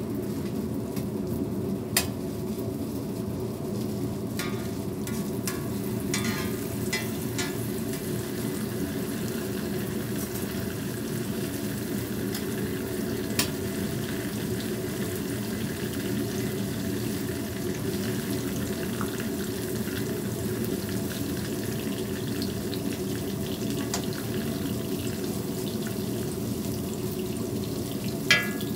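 Hotteok frying in a flat griddle tray of shallow oil: a steady sizzle, with a few sharp clicks, the loudest near the end.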